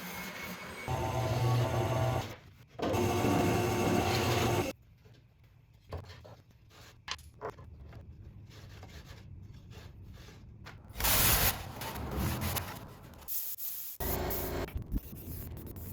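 A small electric power tool runs in two bursts of a couple of seconds each, followed by scattered knocks and handling clicks, with another brief run near the end.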